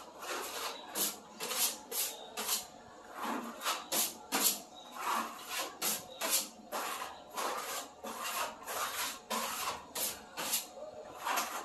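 Scraper spreading skim coat across a ceiling: repeated short scraping strokes, about two a second, uneven in rhythm.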